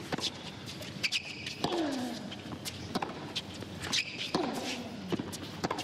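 Tennis rally on a hard court: sharp pops of racket strikes and ball bounces about once a second. Three of the shots are followed by a player's falling grunt.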